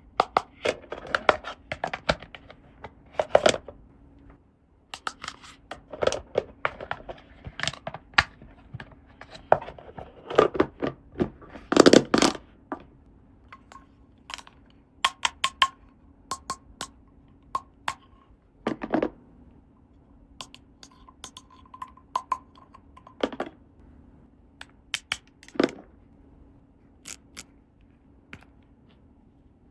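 Small plastic toy pieces and packaging being handled: an irregular run of clicks, taps and short rustles, with a louder clattering cluster about ten to twelve seconds in. A faint steady hum sits underneath.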